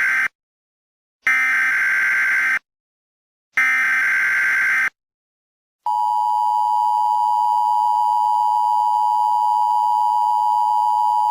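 Emergency Alert System tones. First come the digital SAME header data bursts, each a little over a second long with about a second of silence between them. About six seconds in, the steady two-tone EAS attention signal starts, holds level, and cuts off suddenly near the end.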